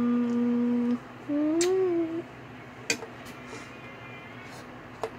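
A person humming: one held note, then a shorter note that rises and falls. A few sharp clicks of Lego bricks being handled follow.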